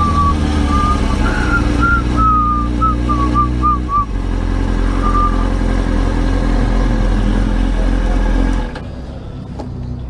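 Kawasaki ZX-6R's inline-four engine running at low speed and idling as the bike creeps into a parking space, with a string of short high chirps over it in the first few seconds. The engine note changes about four seconds in, then cuts out near the end and the sound drops much quieter.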